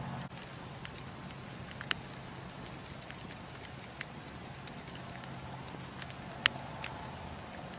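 Wood campfire crackling: a steady low rumble and hiss of the flames, with sharp pops from the burning logs scattered irregularly, the loudest about six and a half seconds in.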